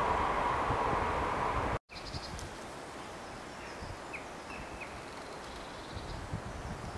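A steady rushing outdoor noise that cuts off abruptly about two seconds in, followed by quieter woodland ambience with a few short, high bird chirps.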